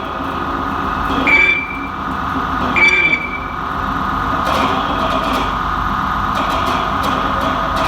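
Live electronic noise: a continuous rumbling, rattling drone with a steady high tone running through it, and two short high squealing tones in the first three seconds.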